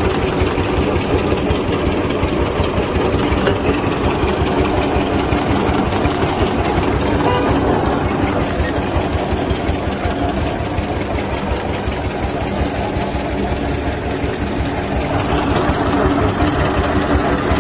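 A vehicle engine running steadily with a fast, even pulse.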